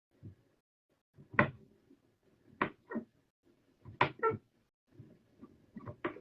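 Several sharp knocks and clacks at irregular intervals, some in quick pairs, as of objects being handled in a small room.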